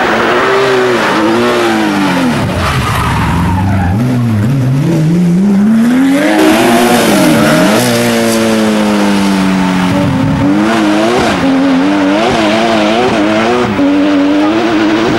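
Porsche 911 rally car's flat-six engine revving hard at racing speed. Its pitch climbs and drops repeatedly with gear changes and lifts off the throttle, with one long climb about halfway through.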